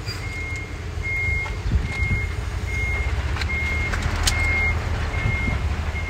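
Reverse warning beeper of a radio-controlled truck, a steady high beep repeating a little more than once a second over a low engine rumble, with a couple of sharp clicks in the middle.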